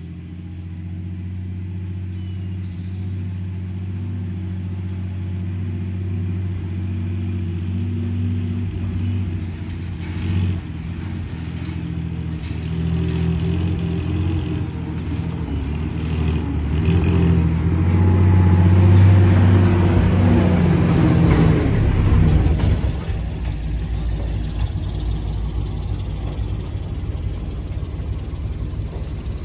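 Ford 4.9-litre straight-six engine of a 1950 Grumman Olsen curbside van pulling about 5,000 lb on a trailer, growing steadily louder as it approaches. It is loudest about 18 to 22 seconds in, then drops off sharply and runs on more quietly.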